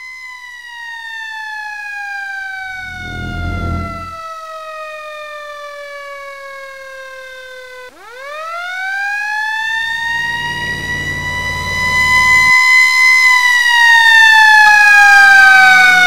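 Fire engine siren winding down slowly in pitch, then winding back up sharply about halfway through, holding high and loud, and starting to fall again near the end. Low engine and road rumble comes through twice.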